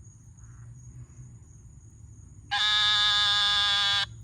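A loud, steady nasal buzz that starts abruptly about two and a half seconds in, holds one pitch for about a second and a half, then cuts off. It is the recurring mystery sound being hunted for, over a constant high insect whine.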